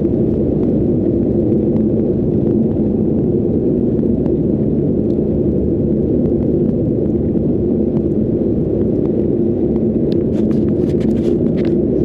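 Steady drone of a moving car's engine and tyres heard from inside the cabin, with a few faint ticks near the end.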